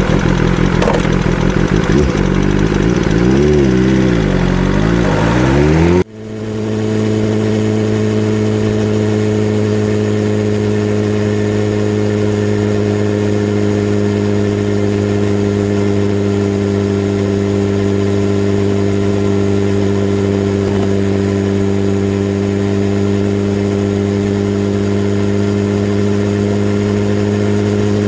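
BMW S1000RR inline-four engine running: for the first few seconds its pitch rises and falls as it is revved. After an abrupt cut it settles into a steady, even running note.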